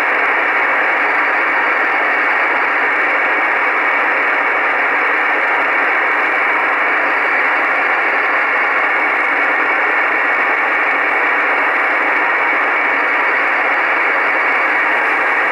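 Icom IC-R8500 receiver in upper sideband on 14582 kHz passing steady shortwave static hiss, with no voice on the channel between transmissions. The hiss is even and unchanging and sounds thin, with no deep bass or high treble.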